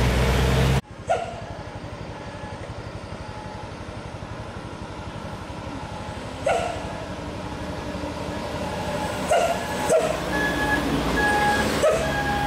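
Diesel truck engines working up a steep mountain road. A Hino dump truck's loud pass-by cuts off sharply within the first second, then another truck's engine runs steadily as it climbs toward the camera, growing louder near the end, with a few short high calls over it.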